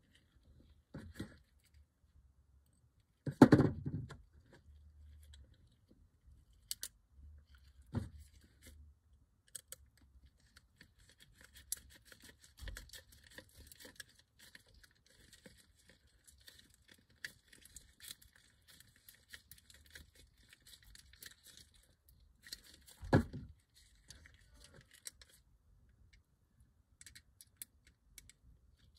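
Small screwdriver working the tiny chassis screws of a diecast model car, with light clicks and scraping of metal on metal as the screw is turned. Two louder knocks stand out, one a few seconds in and another some twenty seconds later, among scattered clicks of small parts being handled.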